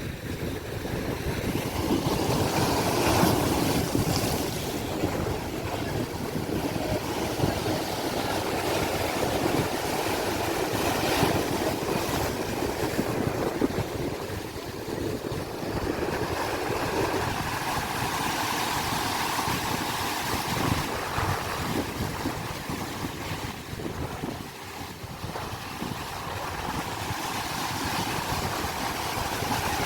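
Sea waves washing in, the noise swelling and easing every few seconds, with wind buffeting the microphone.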